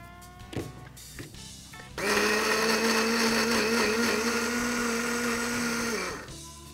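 Glass countertop blender switching on about two seconds in and running steadily for about four seconds, puréeing soaked guajillo chiles with garlic, onion and water into a smooth red sauce, then winding down as it is switched off.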